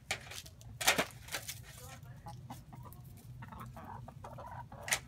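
Chickens clucking softly while they peck at food on dirt, with a few sharp taps. Short clucks come about three and a half seconds in.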